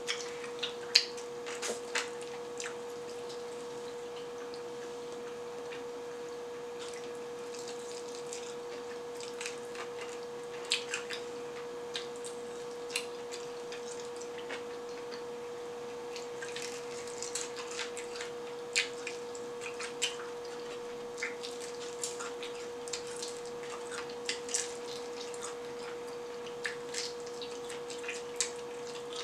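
Eating sounds of fried chicken: scattered soft crunches and wet mouth clicks of chewing and of meat being pulled off the bone, over a steady faint tone.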